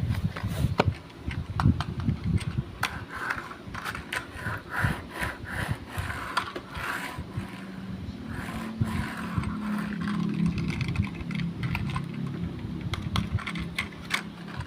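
Objects being handled: a run of clicks, taps and scrapes, with a low steady hum for a few seconds in the middle.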